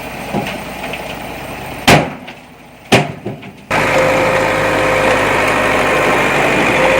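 Heavy earthmoving machine's diesel engine running steadily, with two loud knocks about two and three seconds in. Just after halfway it jumps abruptly to a louder steady run with a thin whine over it.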